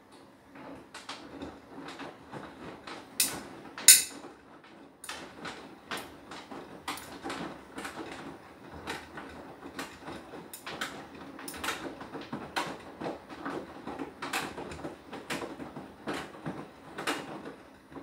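Beko WTK104121W front-loading washing machine drum turning during a wash, the laundry tumbling and dropping with irregular knocks and clatters, two sharper knocks about three to four seconds in.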